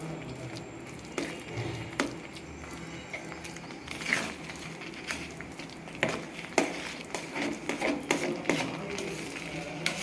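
Steel ladle stirring Dalda into thick rava kesari in a steel pan. The ladle makes irregular scrapes and clicks against the pan.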